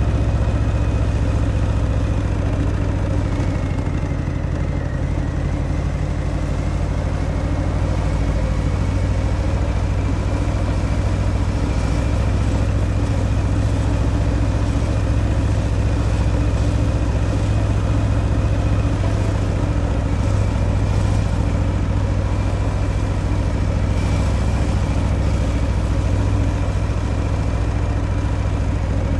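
Harley-Davidson Fat Boy's Milwaukee-Eight 114 V-twin engine running steadily through its stock exhaust, with a slight dip in pitch about five seconds in.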